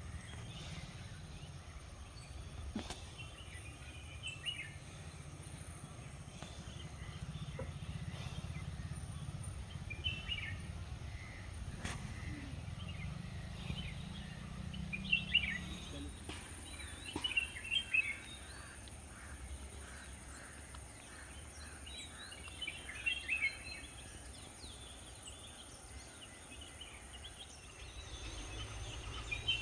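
Outdoor ambience with scattered bird calls over a steady low rumble; the calls come in clusters, busiest around the middle and near the end.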